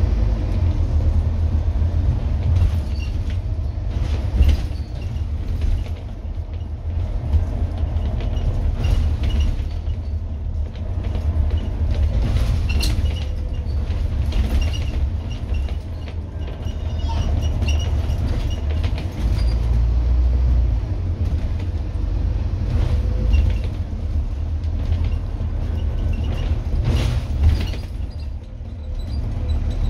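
Scania N230UD double-decker bus's five-cylinder diesel working hard under way, heard from inside the passenger saloon as a loud low rumble. Occasional knocks and rattles from the body come through, and the drive eases off briefly a few times.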